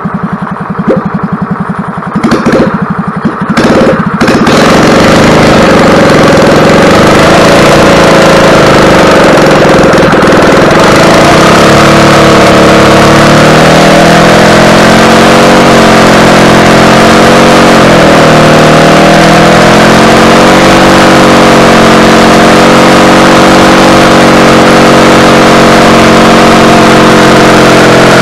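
Freshly rebuilt EZGO golf cart gas engine on a test stand, cranked over by its starter-generator and sputtering a few times, then catching about four seconds in and running steadily. Its speed rises and falls a little for a while in the middle. This is the first start after the rebuild, run in to break the engine in.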